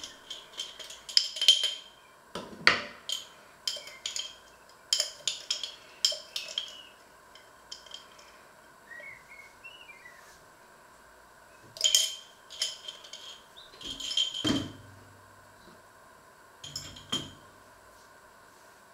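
Kitchenware being handled: dishes, glass and cutlery clinking and clattering in irregular bursts, with a louder knock about three seconds in and another near fourteen and a half seconds.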